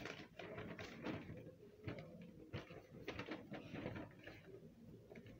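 Sheets of printed paper being shuffled and flipped: irregular rustling and crackling.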